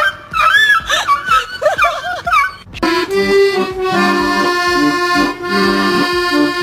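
High, wavering vocal sounds with quickly bending pitch, then accordion music starts about three seconds in and plays on steadily.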